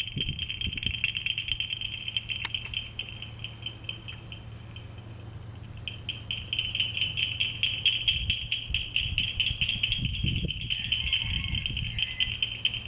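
Insects trilling, most likely cicadas: a fast, even, high-pitched pulsing that breaks off for a couple of seconds in the middle and then starts again.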